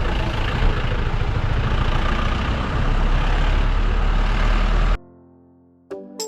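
Steady street noise of vehicle engines running and idling, with traffic around. It cuts off abruptly about five seconds in, and music starts near the end.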